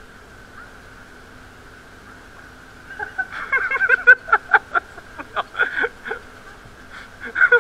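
People laughing in repeated short bursts, starting about three seconds in, over a faint steady hum.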